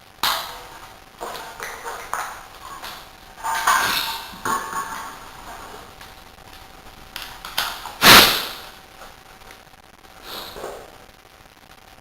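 Metal hand tools clinking and clanking against metal during a rear tyre change, in irregular knocks with short ringing. The loudest clank comes about eight seconds in.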